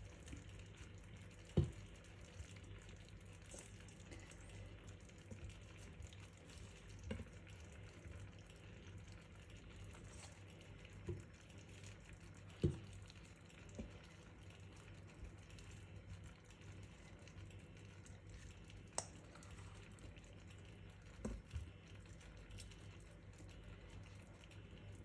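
Faint, sparse soft knocks as pieces of vegetable are set by hand into a tajine dish, a handful of them several seconds apart, over a low steady hum.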